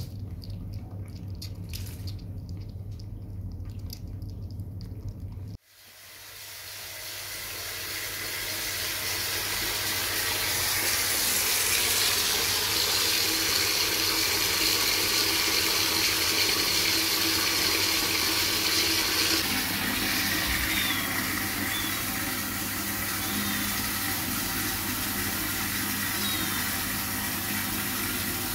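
A kitten lapping water in a bathtub, faint ticks over a low hum; then, after a sudden cut about five seconds in, water runs into the tub, swelling over a few seconds to a steady hiss.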